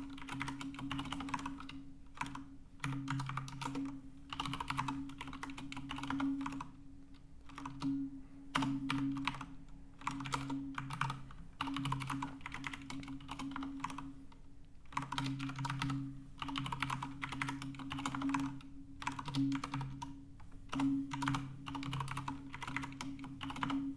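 Typing on a computer keyboard: bursts of rapid key clicks with short pauses between, as numbers and formulas are keyed in.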